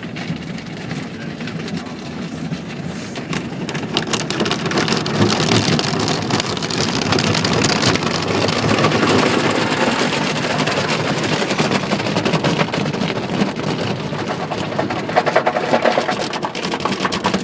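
Water from an automatic car wash spraying and drumming on the truck's roof and windows, heard from inside the cab, growing louder about four seconds in.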